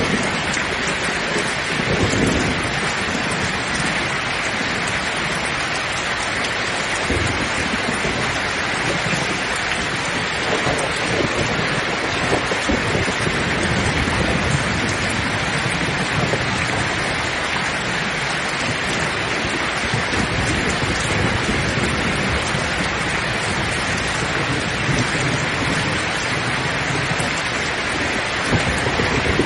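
Steady heavy rain, with low rumbles of thunder swelling up now and then.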